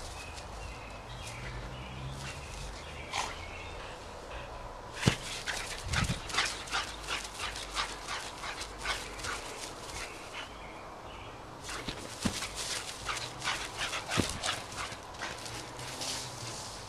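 Boxer dog running flat out on grass: two long stretches of quick rhythmic thuds and rustles from its running, several a second, the first starting about five seconds in and the second about twelve seconds in.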